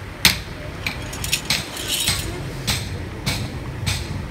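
Steady hammering: sharp, ringing metallic strikes about every two-thirds of a second.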